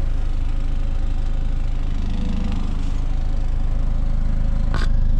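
2020 FAW Besturn X80's 2.0-litre naturally aspirated four-cylinder engine idling steadily, heard from beneath the rear of the car close to the exhaust. A single short knock sounds near the end.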